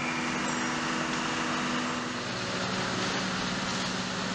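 Steady machinery hum and noise in an aircraft carrier's hangar bay, with a low hum that drops in pitch about two seconds in.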